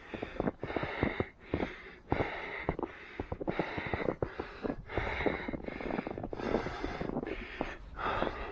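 A runner's quick, rhythmic breathing in time with footsteps in snow, in an even beat of about one every 0.6 seconds.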